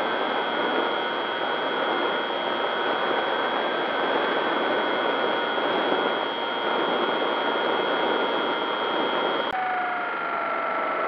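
Small electric RC plane's motor and propeller whining in flight, under a steady hiss. The pitch slides slowly, and about nine and a half seconds in the sound cuts to a lower motor whine.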